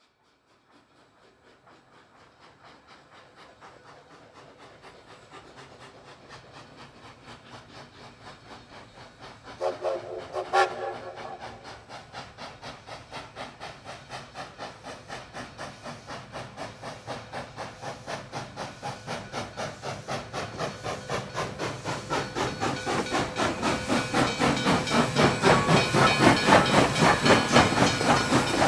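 Steam locomotive approaching, its rhythmic beat at about three a second growing steadily louder, with a short pitched whistle blast about ten seconds in.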